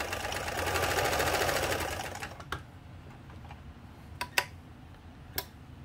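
Montgomery Ward J1460 sewing machine running fast, sewing a straight stitch with a steady stitching rhythm, then slowing and stopping a little over two seconds in. It is followed by a few sharp clicks as the stitch-length knob is handled.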